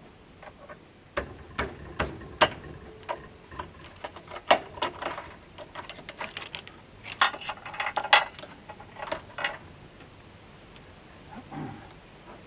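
Irregular clicks, clacks and scrapes of a screwdriver working at the screws and plastic clips of a CRT television being taken apart, coming in clusters with pauses between.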